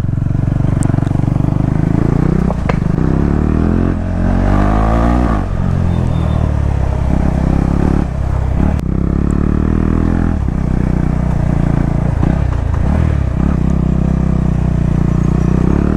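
Modified KTM Duke 390's single-cylinder engine under way, its pitch climbing and dropping several times as the throttle is opened and closed.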